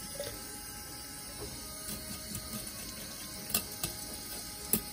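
Kitchen knife scraping scales off a horse mackerel in a stainless-steel sink, light scratchy clicks over running tap water, with a few sharper knocks about three and a half and four and three-quarter seconds in.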